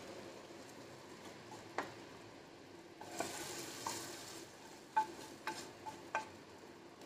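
A wooden spatula scrapes butter-fried garlic out of a frying pan into a pot of rice and lentils, with a brief sizzle about three seconds in. About six sharp knocks with a short ringing tone follow as the spatula and pan are tapped against the metal pot.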